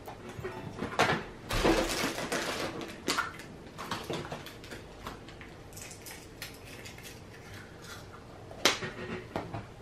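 Hollow plastic Easter eggs being handled: light clicks and clatter as the halves are pulled apart and snapped shut, with a stretch of rustling early on and a sharp snap near the end.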